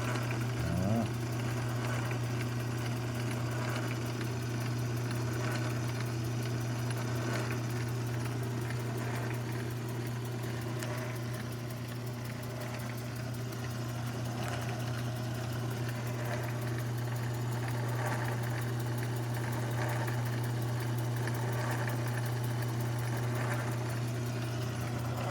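Mini lathe's motor running steadily under its speed controller while it drills a tap-size hole for a 1/4-inch thread, a constant low hum.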